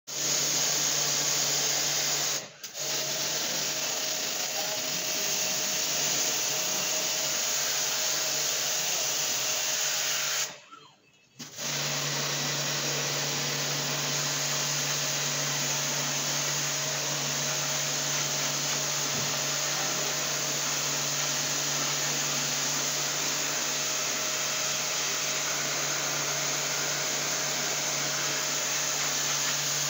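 Electric jet pump (portable pressure washer) running while its spray gun jets water onto the indoor unit of a split air conditioner: a steady motor hum under a hiss of spray. It stops briefly twice, about two and a half seconds in and for about a second near eleven seconds.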